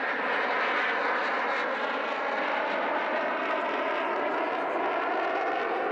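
A pair of CF-18 Hornet fighter jets roaring overhead: a steady jet roar from their twin turbofan engines.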